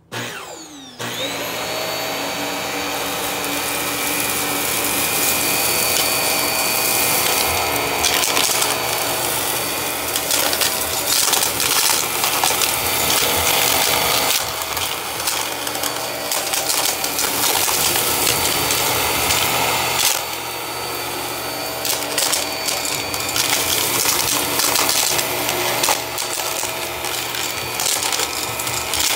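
Hart upright vacuum cleaner switching on about a second in, its motor whine rising up to speed, then running steadily over carpet. Crackles and clicks of confetti, coins, caps and bits of wood being sucked up through the head break in throughout.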